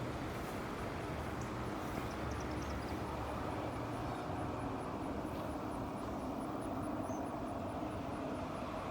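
Steady low rumble of distant vehicle noise, with a few faint high chirps.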